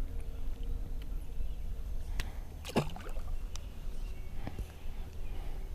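Handling sounds in a small fishing boat: a few light clicks and knocks of rod, line and jig over a low steady rumble. A brief swooping sound that falls and rises again comes about three seconds in.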